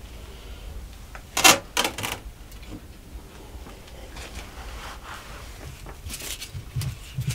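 A large glass jar of pickles taken off a wooden shelf, with a sharp knock and clink about one and a half seconds in and a few lighter clinks just after. Near the end, onions rustling and knocking against a plastic crate as they are picked out.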